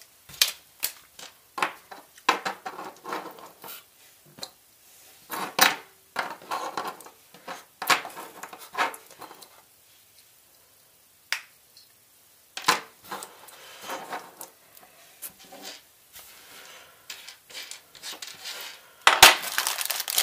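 Small electronic parts (LED matrix modules and header pins) clicking and clattering irregularly as they are picked up and set down on a cutting mat, with plastic parts bags crinkling near the end.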